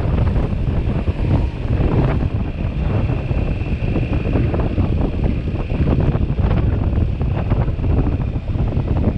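Heavy wind rushing and buffeting over a helmet-mounted camera's microphone on a scooter ride at highway speed. A faint steady high whine runs through it for a few seconds near the middle.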